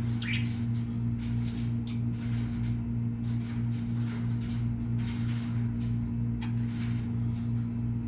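A steady low hum, with many faint, short scratchy ticks and rustles coming irregularly over it.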